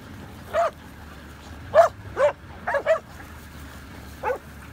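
Blue Lacy working dogs barking while herding longhorn cattle: about six short barks in an uneven string, the loudest a little under two seconds in.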